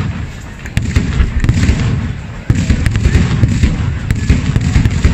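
Fireworks going off in dense, rapid volleys of bangs and crackling: one volley starts about a second in, and another, heavier one about two and a half seconds in.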